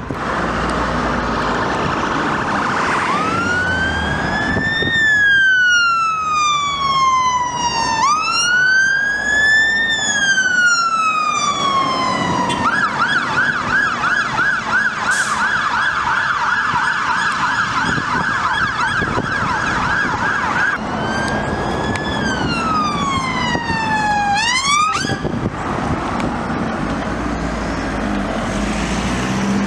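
Electronic sirens of a fire engine and a police car responding. A slow wail rises and falls from about three seconds in, switches to a fast yelp for around eight seconds, then returns to the wail and cuts off abruptly. Vehicle engines and traffic noise continue after it.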